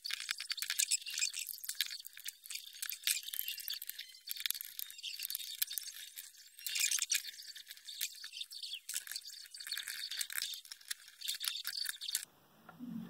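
Screwdriver prying and scraping at the plastic casing of a small Bluetooth speaker: a dense, irregular run of clicks and scrapes that stops about a second before the end.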